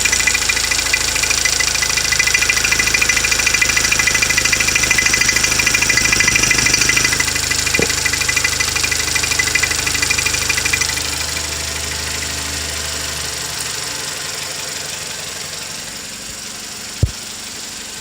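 Toyota Camry's 2.0-litre 6AR-FSE four-cylinder engine running with a fast, even knocking tapping through it: the knock the owner hears in this low-mileage engine. The sound eases and grows quieter in the second half, and one sharp click comes near the end.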